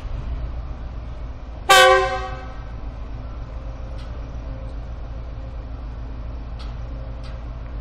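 GEU-40 diesel-electric locomotive running with a steady low rumble as it rolls slowly, giving one short horn toot about two seconds in that is the loudest sound and fades within a second. A few faint clicks follow later.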